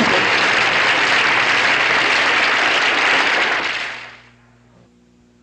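Studio audience applauding at the end of a scene, the applause fading out about four seconds in and leaving only a faint low hum.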